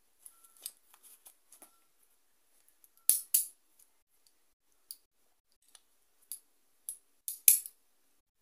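A folding multitool being drawn from its pouch and opened. Soft rustles and small clicks come first. Then two sharp metal clicks come about three seconds in, scattered single clicks follow, and a quick cluster of loud clicks comes near the end as its tools are swung open.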